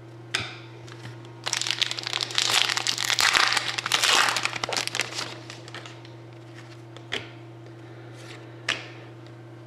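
Thin plastic crinkling as trading cards are handled, dense for about four seconds starting a second and a half in, with a few short card clicks before and after.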